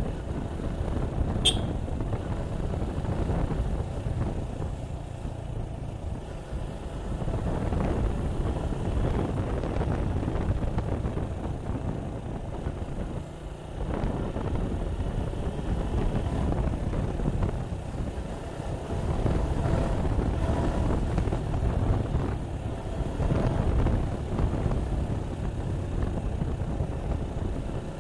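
Suzuki Gixxer 155's single-cylinder engine running as the motorcycle is ridden along at a steady pace, dipping briefly about halfway through.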